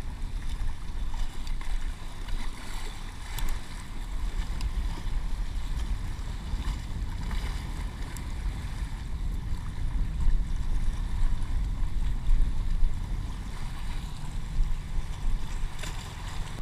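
Ocean surf washing and splashing against the rocks of a stone jetty, with wind buffeting the microphone in a steady low rumble and a few faint clicks.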